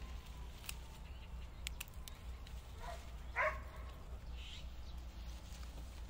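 Quiet garden ambience with a steady low hum and a few faint snaps and rustles of leafy green stems being picked by hand. About three seconds in comes a short animal call, a faint one followed by a louder one, such as a distant dog or bird.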